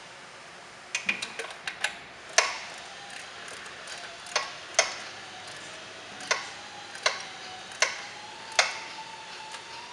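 Hand ratchet clicking as the shipping caging bolts on a Solo self-adjusting clutch are tightened down: a quick run of clicks about a second in, then single sharp clicks roughly once a second.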